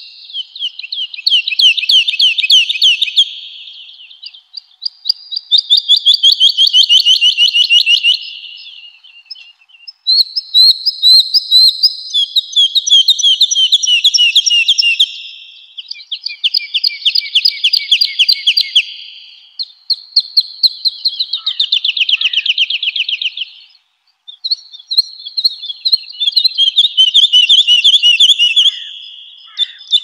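Woodlark singing: a series of phrases, each a run of quickly repeated notes that speed up, fade and fall slightly in pitch, with short pauses between phrases.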